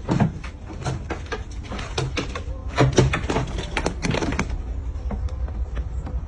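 Irregular knocks and clattering, several a second, over a steady low rumble.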